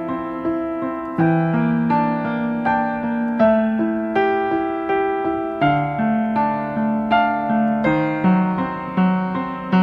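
Background piano music: single notes and chords struck about every half second, each ringing out and fading.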